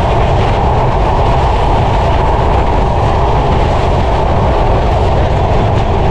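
Passenger train running at speed, a loud, steady rumble of wheels on rail heard from the open doorway of a moving coach.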